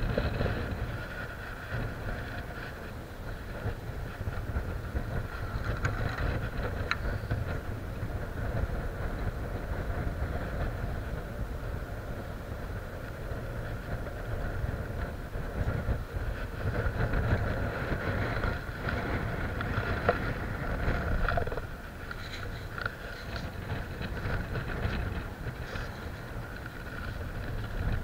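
Wind rumbling on the microphone over the wash of the sea against a concrete breakwater, with a few faint clicks.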